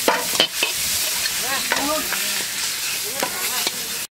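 Fried prawns sizzling in hot oil while they are pushed out of a wok into a steel bowl, with metal scraping clicks and short squeaks. The sound cuts off abruptly near the end.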